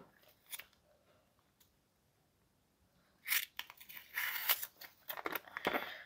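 Plastic packaging being handled and pulled open inside a mouse box: a quiet stretch, then a run of short scratchy rustles from about three seconds in.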